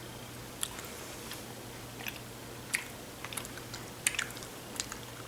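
Someone chewing a soft, taffy-like banana candy: faint, scattered wet mouth clicks over a low steady hum.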